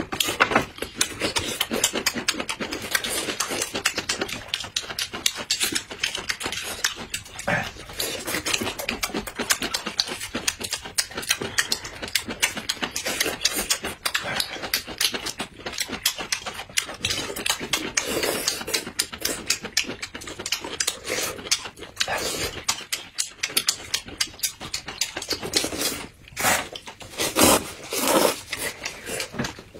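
Close-miked chewing of peeled roasted bamboo shoots: a dense, fast run of wet mouth clicks and smacks. A few loud noodle slurps come near the end.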